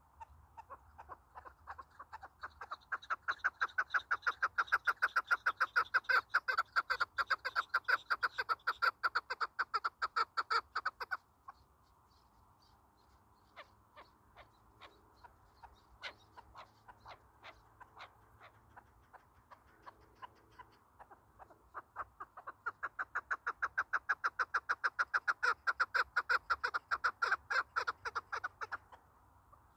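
Chukar partridge giving its rapid repeated chuk-chuk call in two long, loud runs. The notes build up quickly at the start of each run, and softer scattered notes come between the runs.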